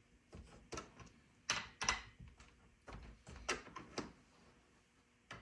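Irregular clicks and knocks from hands working on a chainsaw's chain and bar, about eight sharp taps spread over a few seconds.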